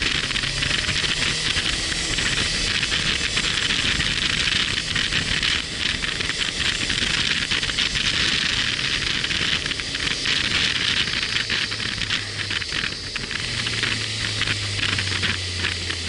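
Wind rushing over the microphone on a moving motorcycle, a steady hiss, with the bike's engine humming low underneath; the engine note gets stronger near the end.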